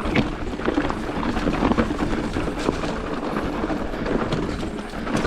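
Mountain bike riding down a rocky trail: tyres crunching over loose stones and the bike rattling with a steady run of small knocks and clicks.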